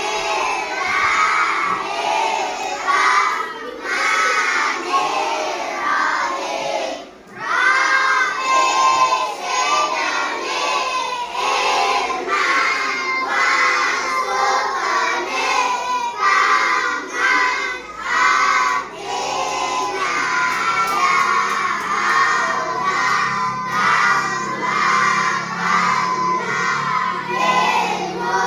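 A class of children singing a song together in unison, loud and half-shouted.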